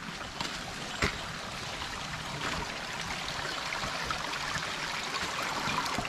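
Mountain stream rushing steadily, with two footsteps on the trail in the first second or so.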